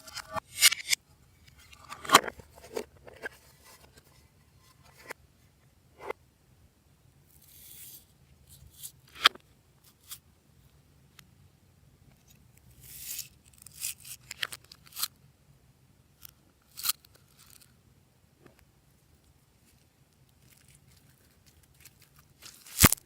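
Hands handling slime and its add-ins: scattered clicks, crunches and short rustles, with a sharp, loud snap near the end.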